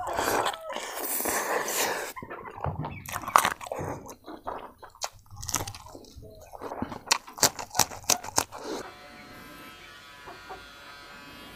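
Close-up mukbang eating sounds: chewing and lip-smacking on pork trotters and rice eaten by hand, with a run of sharp mouth clicks between about seven and eight seconds. After about nine seconds the eating stops and a faint steady hum takes over.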